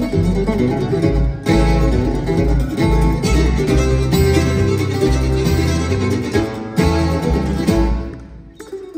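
Acoustic string band playing an instrumental tune live: mandolin, fiddle, acoustic guitar and upright bass together over a steady bass pulse. The full band drops away sharply near the end, leaving quieter playing.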